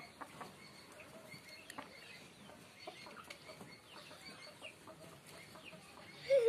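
Chickens clucking faintly in short scattered calls, with one louder wavering call near the very end.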